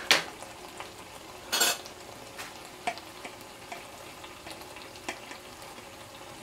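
Metal spoon clinking and scraping against a glass jar as soft spiced butter is scooped out: two sharp clinks at the start, a short scrape about a second and a half in, then a few lighter taps. Underneath, the stew in the pot sizzles faintly and steadily.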